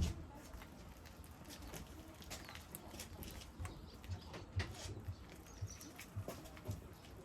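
Irregular light clicks and soft low knocks, a few each second, over a faint background.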